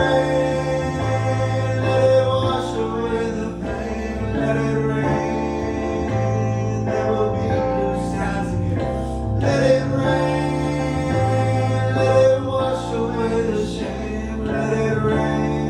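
Music: a rock song with guitar, a moving bass line and sustained chords, with singing over it but no clear words.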